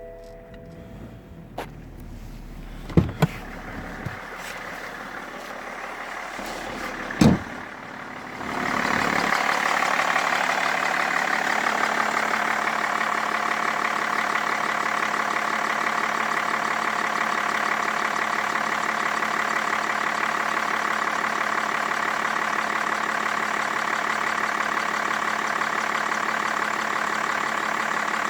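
A few sharp knocks and clicks, then about eight seconds in the BMW 525d's 2.5-litre straight-six diesel comes to life and settles into a steady idle. The engine is running again on a replaced and newly programmed ECU.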